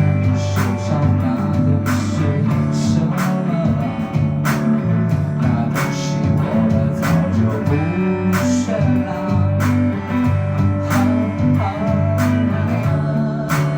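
Rock band playing live, with guitars over bass and drums; drum hits mark a steady beat.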